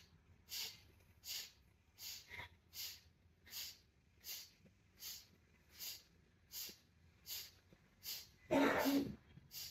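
Pumping pranayama breath: short, forceful exhalations through the nose at a steady pace of about one every three-quarters of a second, with a louder, longer breath near the end.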